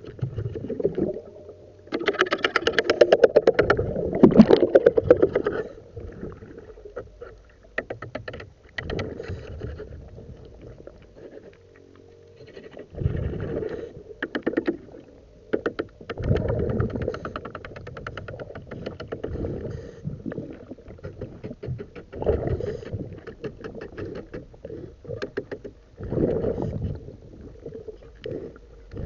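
Muffled underwater noise of a diver cleaning a boat's hull, coming in surges every few seconds with quieter gaps between.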